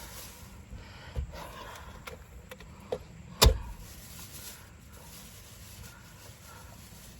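Steady rain falling, with a few light knocks and one loud thump about three and a half seconds in.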